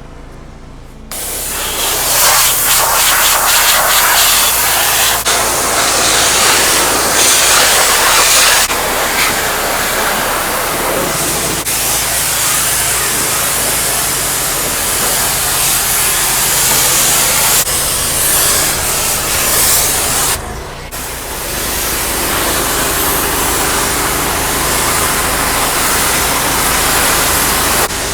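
High-pressure washer spraying water onto a truck: a loud, steady hiss that starts about a second in, stops briefly about two-thirds of the way through as the trigger is let go, then resumes, with the washing rig's engine and pump humming steadily underneath.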